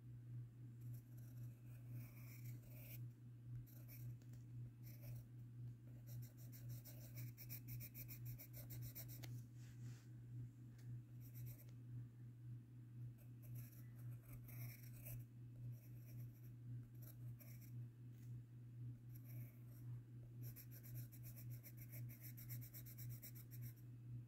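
Pencil scratching on sketchbook paper: scattered short strokes, with two long spells of rapid back-and-forth scribbling, one about six seconds in and one near the end. A steady low hum runs underneath.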